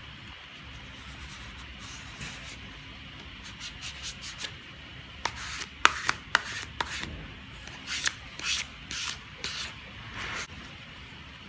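Plastic squeegee swiped over film on wet glass, pressing out the water beneath it in a series of short rubbing strokes that come faster and louder about halfway through.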